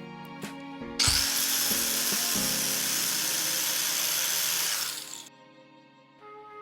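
Angle grinder with a 60-grit flap disc grinding down solder on a car's steel hatch. It cuts in abruptly about a second in, runs steadily for about four seconds, then winds down, with background music underneath.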